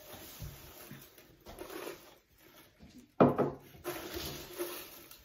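Brown crinkle-cut paper shred packing filler rustling and crunching as hands dig through it and lift a large handful out of the box, with one sudden louder crunch a little past three seconds in.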